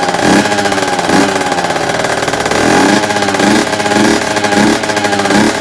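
Tuned two-stroke scooter engine with a Malossi Over Range expansion exhaust and 21 mm Dell'Orto carburettor, revved in a series of quick throttle blips, about seven in a row, each pitch rising sharply and dropping back over a steady high running note.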